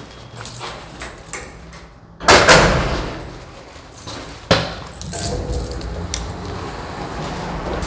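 A bunch of keys jangling at a metal-framed glass entrance door, with a loud bang as the door swings about two seconds in and a sharper knock about two seconds later. A steady low rumble follows.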